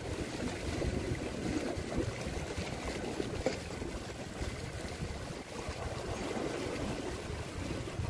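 Sea waves washing over a rocky shore, a steady, restless noise with some wind rumble on the microphone.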